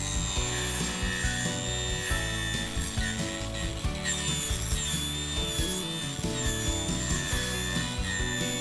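A small power tool runs with a high whine whose pitch wavers as it works the material, over background music.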